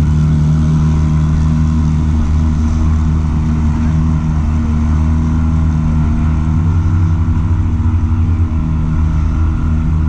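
Small boat's outboard motor running steadily under way.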